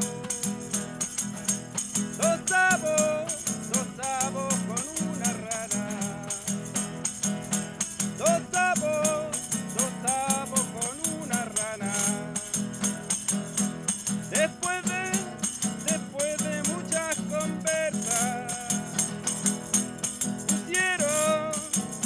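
A man singing a cueca melody, kept in time by the quick, steady rattle of a small wooden hand-held percussion box that he shakes.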